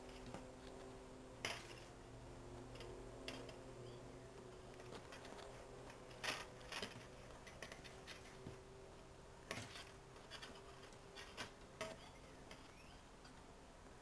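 Wire for a piñata frame being handled and twisted together by hand: scattered light metallic clicks and scratches as the wires rub and tap against each other and the table, about eight in all, over a faint steady hum.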